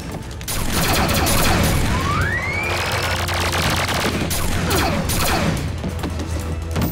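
Sustained automatic gunfire from an armed truck's mounted guns, a cartoon sound effect that starts about half a second in and keeps going in rapid bursts. A rising whistle cuts through it around the middle.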